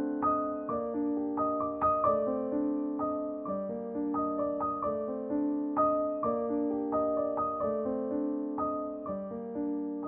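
Background piano music: a flowing melody of struck notes, a few each second, over held lower chords.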